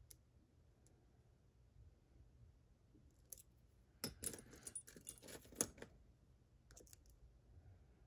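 Faint clicks of lock picking in a Mottura Viper euro cylinder, then about two seconds of metal clatter from about four seconds in as one pick is put down and another taken up from a bench heaped with keys and tools, with a few more clicks near the end.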